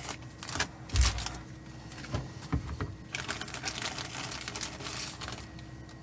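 Crinkling plastic bag and clicking plastic kit parts as clear model parts are unpacked and handled by hand, with a dull knock about a second in. The rustling stops shortly before the end.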